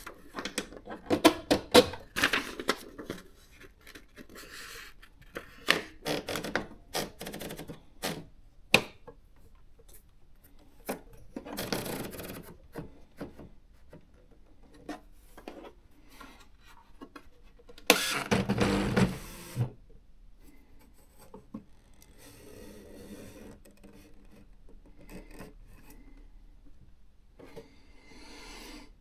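Olivetti ET Compact 60 electronic typewriter typing: rapid runs of sharp daisywheel strikes for the first nine seconds or so, then separate spells of mechanical whirring and scraping. The loudest spell, about a second and a half long, comes about eighteen seconds in.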